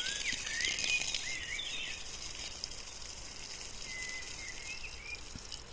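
Small birds chirping: a cluster of short rising and falling calls in the first two seconds and a few more, including one short held whistle, about four seconds in, over a steady background hiss.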